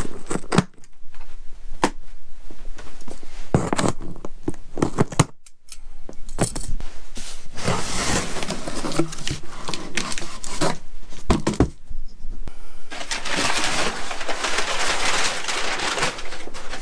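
A cardboard shipping box being unpacked: scissors snip the plastic strapping band, then knocks and scrapes as the box is handled. From about halfway through, crumpled kraft packing paper rustles and crinkles loudly as it is pulled out.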